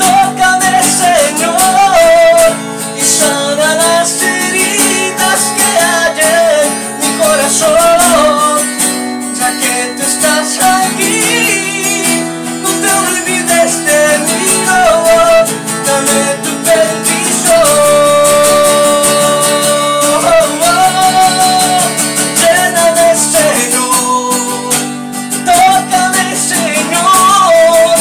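A man singing a Spanish worship song to a strummed acoustic guitar, holding one long note a little past the middle.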